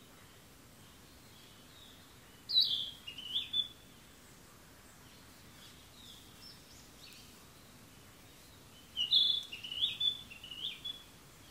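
A songbird singing two short phrases of quick, stepped high notes, the first about two and a half seconds in and the second near the end, with fainter bird chirps between them over a steady background hiss.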